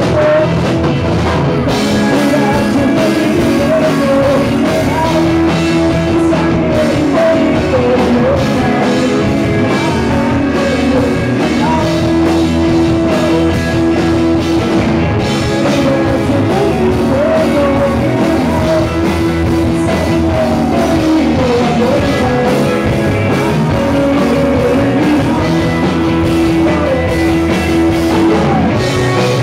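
Live rock band playing continuously and loudly: electric guitars over a drum kit.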